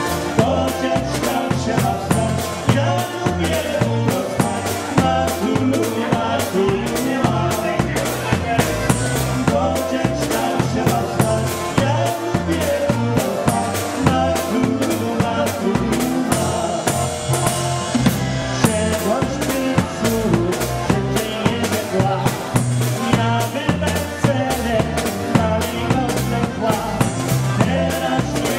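Live polka band playing, with a drum kit keeping a steady beat and a man singing into a microphone.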